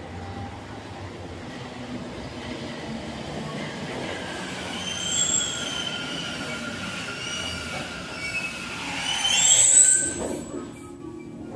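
Rubber-tyred Mexico City Metro train pulling into a station and braking to a stop: a rumble with high squealing tones that grow loudest just before the train halts, near the end.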